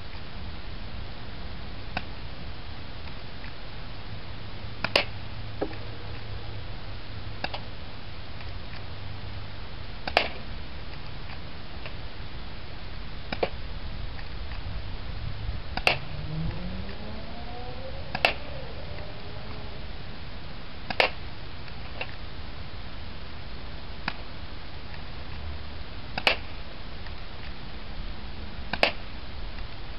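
Spring-powered airsoft M9 pistol firing single shots: a sharp snap every two to three seconds, about a dozen in all, over a steady hiss.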